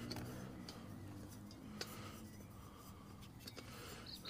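Faint handling sounds of a backpacking stove being screwed onto a gas canister: light scrapes and small clicks of metal on metal.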